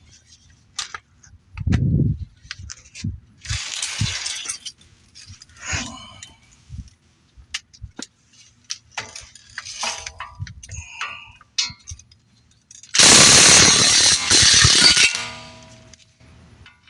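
Scattered metal clinks and knocks of tools and suspension parts, the steering knuckle being tapped loose during front strut work. Around three quarters of the way in comes a loud burst of noise lasting about two seconds.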